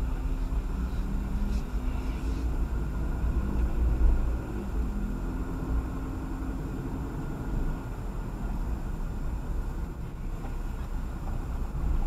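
Car running with a steady low rumble, heard from inside the cabin, with a brief low thump about four seconds in.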